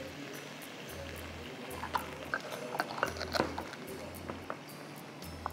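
Crisp toasted vermicelli being scooped from a glass bowl into a cup and pressed down: a run of light crackling clicks beginning about two seconds in and lasting under two seconds, over a faint steady background.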